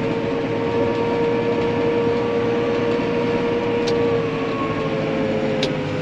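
Massey Ferguson 4355 tractor running at low speed, heard from inside its cab: a steady engine drone with a held whine that drops a little in pitch near the end as the tractor slows.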